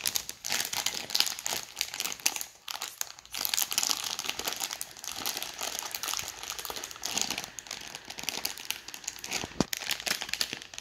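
A plastic blind-bag wrapper crinkling as a child squeezes and turns it in his hands, in a dense run of rustles and small crackles with a few short pauses.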